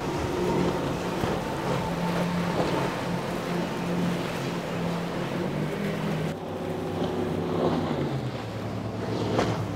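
A bank of large outboard motors on a speedboat running at high speed, a steady engine drone over the rush of hull spray. About six seconds in the sound cuts to another powerboat's engine running at speed, its pitch sweeping up near the end.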